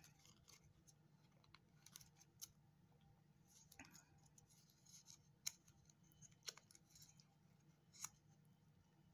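Faint small clicks and rustles of fingers working a small metal charm ring through a punched hole in a paper tag, trying to close it by hand without pliers; a handful of sharp little ticks, over a faint low hum.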